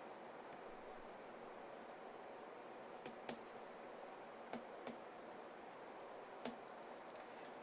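A few faint, scattered clicks over a steady low hiss of room tone.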